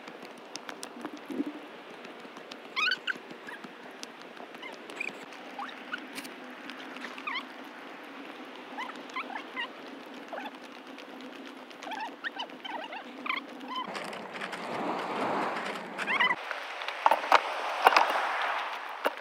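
Birds chirping in short, scattered calls over a steady hiss of forest ambience. From about fourteen seconds in, a louder wash of surf breaking on a pebble beach comes in, with a few sharp clicks.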